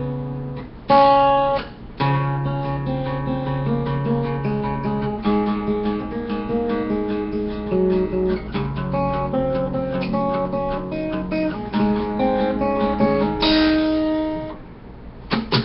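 Acoustic guitar playing a picked, chord-based instrumental intro over a sustained low bass note, pausing briefly near the end.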